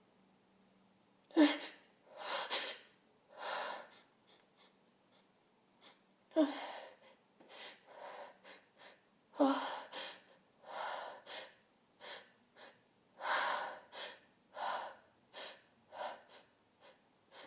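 A woman's sharp, voiced gasps, three loud ones in the first ten seconds, each followed by a run of heavy, noisy breaths. These are the catching breaths of a sneeze building up after a sniff of chhinkni snuff, but the sneezes won't come out.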